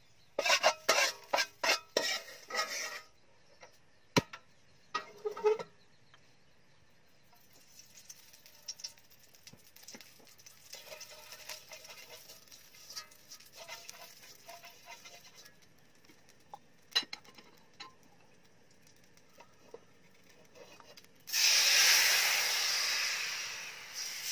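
A utensil knocks and scrapes on a metal wok in a quick run of sharp taps, then scrapes faintly with a few single clicks. About 21 seconds in, crepe batter hits the hot oiled wok with a sudden loud sizzle that slowly fades.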